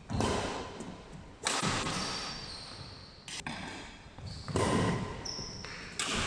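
Badminton rally: rackets strike the shuttlecock about five times, roughly every one to two seconds, each a sharp hit that echoes in the hall. Brief high squeaks come in between.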